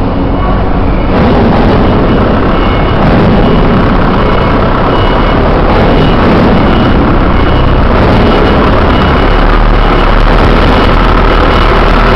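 Loud, steady mechanical noise that steps up about a second in, with a faint high beep repeating about once or twice a second over it.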